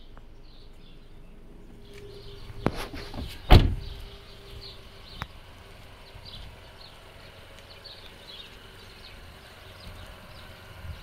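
Car door of a 2016 Vauxhall Corsa opened with a click, then slammed shut with a loud thud about three and a half seconds in.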